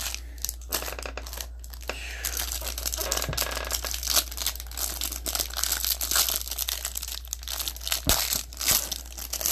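Plastic or foil wrapping crinkling and tearing as a sealed trading-card box and pack are opened by hand, with a few light clicks first, then steady crackling from about two seconds in.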